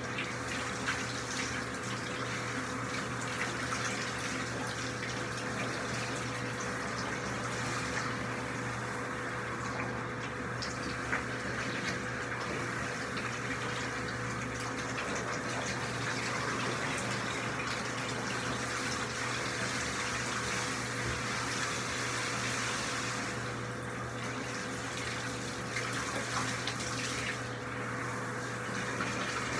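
Handheld bathtub shower sprayer running steadily, its water spraying onto a German Shepherd's coat and splashing into the tub.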